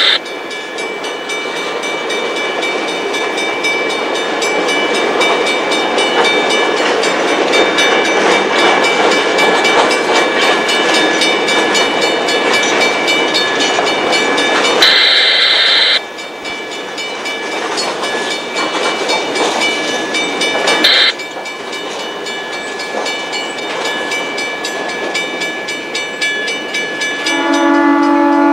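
Freight cars of a Conrail train rolling past a road crossing, a steady rumble. Near the end, after a cut, a diesel locomotive's horn sounds a chord as another train approaches.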